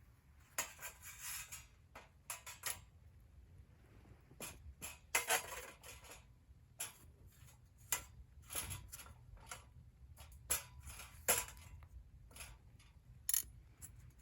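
Irregular light clinks, knocks and rustles of camping gear being handled, with a metallic ring like cookware and utensils.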